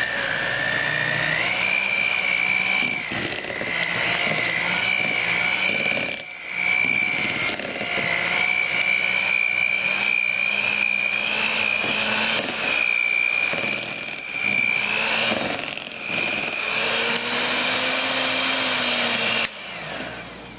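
Electric hand mixer running, its motor whining steadily as the beaters work softened cream cheese and butter in a bowl. The pitch steps up slightly about a second and a half in, and the mixer cuts off near the end.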